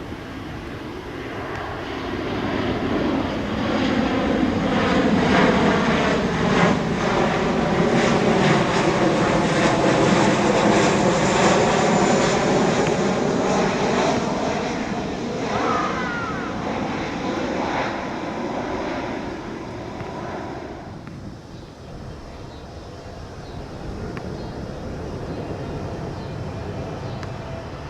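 Jet airliner passing by: its engine noise builds over a few seconds and stays loud for about fifteen seconds, then drops off sharply about three quarters of the way through, leaving a quieter steady noise.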